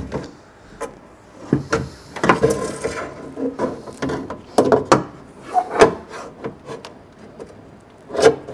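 Rubber window seal being pulled and worked around an MG ZS door's metal frame: irregular rubbing and scraping with a series of knocks and clicks against the door.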